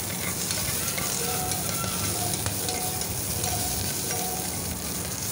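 Green chillies and whole spices (cinnamon, cloves, fennel) sizzling in hot ghee in an aluminium pressure cooker, a steady hiss, while a steel ladle stirs and scrapes them around the pot with a few light ticks.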